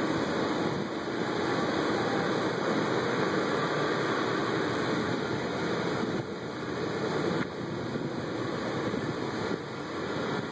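Steady rushing city background noise with no distinct events, dipping slightly in loudness a few times.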